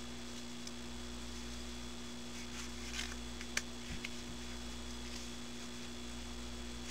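Faint clicks and slides of playing cards as a deck is cut one-handed, with one sharper click about halfway through, over a steady electrical hum.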